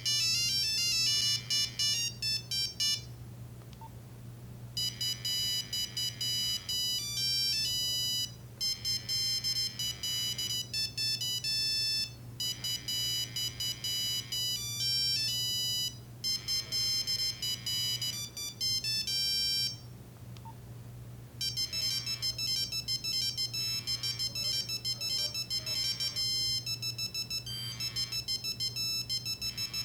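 Nokia 3395 mobile phone playing monophonic ringtone melodies: quick, beeping notes one at a time, stepping up and down in pitch, breaking off briefly about three seconds in and again about twenty seconds in before the tunes carry on.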